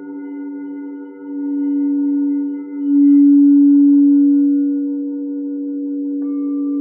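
Several singing bowls ringing in long sustained tones with a slow wobbling beat, the sound swelling louder twice and then easing off; another bowl starts ringing near the end.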